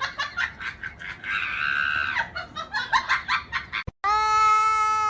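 A person shrieking with laughter in quick repeated cries. After a sudden cut, a cat's long, steady yowl starts about four seconds in.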